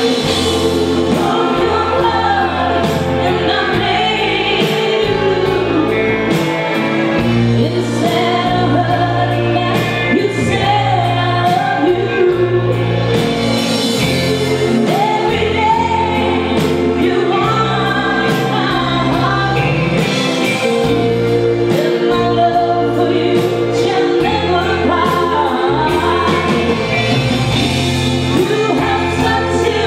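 Live pop band performing, a woman singing lead into a microphone over drums and a full band backing.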